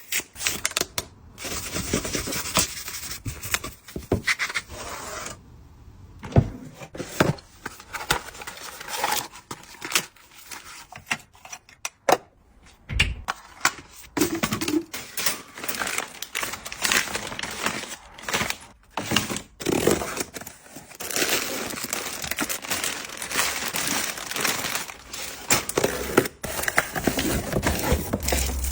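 Packaging being handled and opened: irregular tearing, crinkling and scraping, with many scattered clicks and taps.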